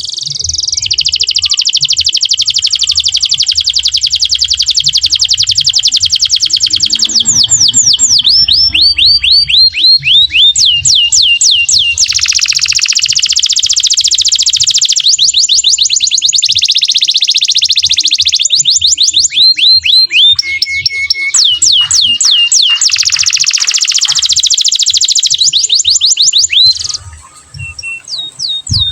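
Domestic canary singing a long, loud song: fast trills and runs of repeated downslurred notes, switching to a new phrase every few seconds. The song drops away briefly near the end before starting again.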